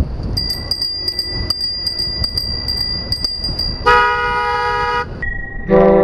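Loud Bicycle Horn, a car-style horn mounted on a bicycle, sounding one blast of a little over a second, two close tones together. Before it there is a steady high whine with regular light ticks, and just before the end a second loud, lower-pitched tone begins.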